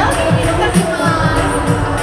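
Upbeat pop music with a steady beat and singing, played loud over the show's sound system.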